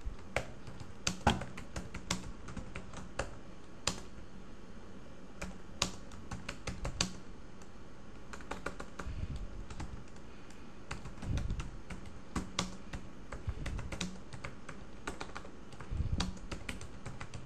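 Typing on a computer keyboard: key clicks in irregular runs and pauses as a line of text is typed, with a few dull low thumps among them.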